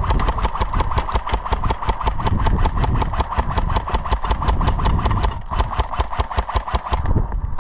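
Rental airsoft rifle firing on full auto: a fast, even string of shots over the whir of its gearbox. The string breaks briefly about five and a half seconds in and stops about seven seconds in.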